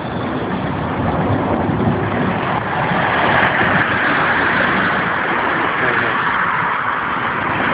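Jet engines of a Tu-154B-2 airliner, its three rear-mounted turbofans, running in flight: a steady rushing roar that grows stronger and brighter about three seconds in.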